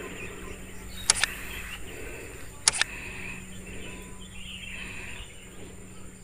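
Outdoor rural ambience with birds chirping and a steady low hum, broken twice by a sharp double click about a second and a half apart.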